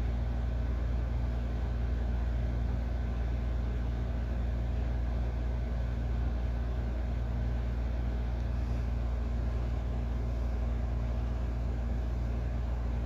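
Steady low rumble of a car being driven, heard from inside the cabin: engine and road noise with no change in pace.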